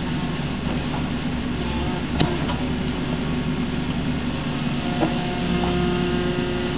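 Kubota KX61-3 mini excavator's diesel engine running steadily while its hydraulics work the boom and bucket digging a trench. A single sharp knock comes about two seconds in, and new steady tones join the engine note about five seconds in as the arm moves.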